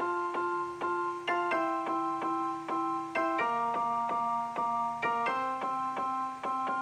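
Background music: a keyboard tune with notes struck at a steady pace, about two or three a second.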